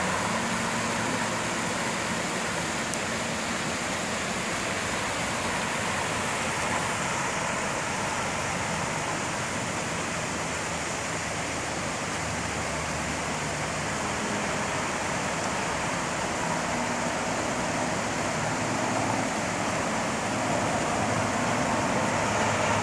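Steady whirring of a camera drone's propellers as it climbs: an even rushing noise with a few faint steady tones.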